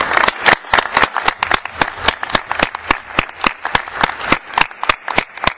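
Scattered applause from a small number of people, the separate claps distinct and irregular, about five or six a second.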